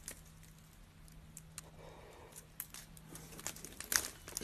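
Bear cub's claws scratching and clicking on tree bark as it climbs, faint and scattered, with a sharper click near the end.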